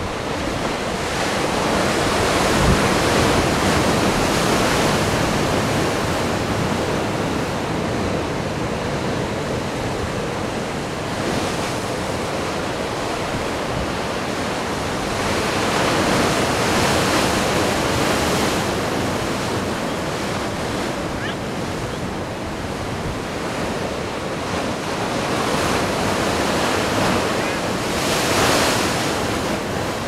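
Atlantic Ocean surf: waves breaking and washing ashore in a continuous rushing hiss that swells and ebbs, with surges near the start, about midway and near the end.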